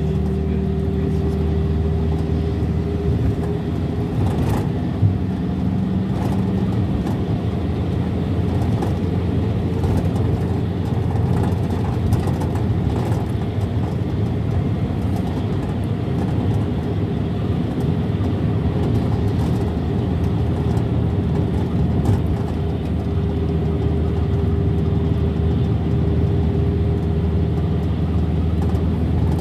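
Mercedes-Benz Sprinter minibus driving at a steady highway speed, heard from inside the passenger cabin: a steady engine hum mixed with tyre and road noise, with a faint whine at the start and again near the end.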